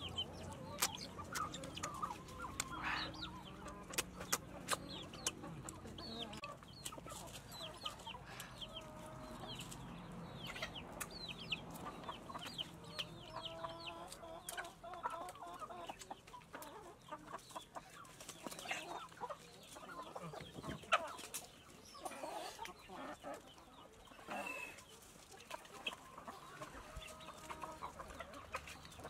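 Domestic chickens clucking on and off, with many short sharp clicks throughout and one louder click about 21 seconds in.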